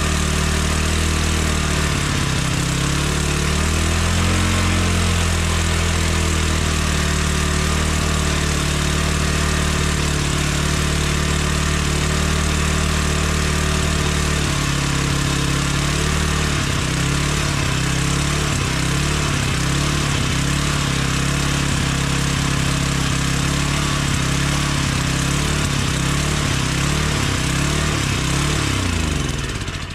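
Small single-cylinder Suzuki 2 hp edger engine running on a swapped-in Briggs & Stratton carburetor, its speed rising and falling repeatedly as it surges. The surge comes from a makeshift throttle hookup that is not yet set right. The engine cuts off at the very end.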